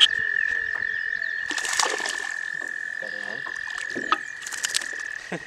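A toad's long, unbroken, high trill, held steady, with another slightly higher trill carrying on near the end. A small splash about four seconds in as a released bass hits the water.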